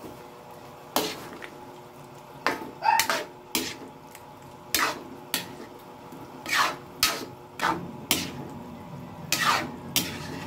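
A metal spatula scrapes and knocks against a metal wok while stirring a thick stew. About a dozen irregular clinks and scrapes come roughly a second apart.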